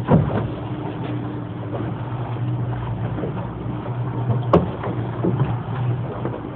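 A fishing boat's engine running steadily with a low hum, under wind and water noise, with a sharp knock at the start and another about four and a half seconds in.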